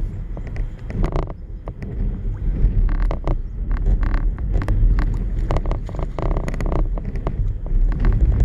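Wind buffeting the microphone as a heavy, unsteady low rumble, with scattered short clicks and knocks.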